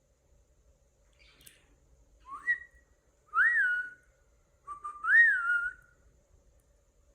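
Cockatiel whistling three short notes about a second apart, each sliding up and then dipping and levelling off.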